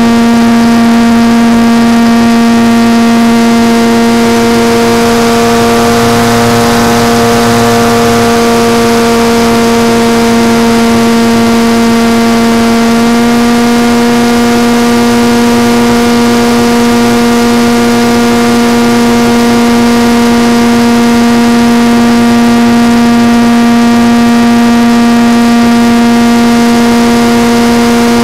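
RC model airplane's motor and propeller heard from a camera on board the plane: a loud, steady drone holding one pitch, the throttle held constant in cruising flight.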